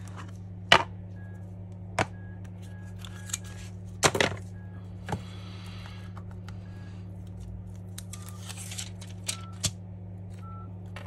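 Sharp clicks and taps of a plastic spudger and small phone parts being handled and set down during an iPhone screen repair, about seven of them, the loudest about a second in, over a steady low electrical hum.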